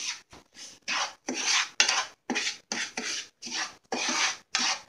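Wooden spatula scraping and stirring dry semolina (rava) as it roasts in ghee in a non-stick pan: a rasping scrape repeated about twice a second.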